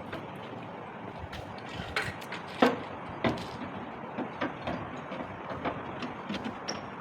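A series of irregular knocks and clicks from parts being handled during assembly, the loudest knock about two and a half seconds in, over a steady background hiss.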